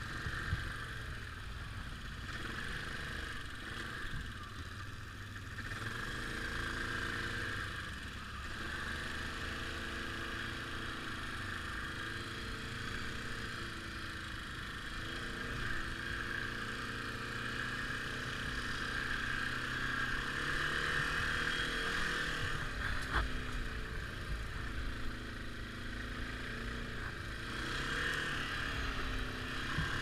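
ATV engine running while riding, heard close on board, its pitch rising and falling a little with the throttle over a steady hiss. One sharp knock about three-quarters of the way through.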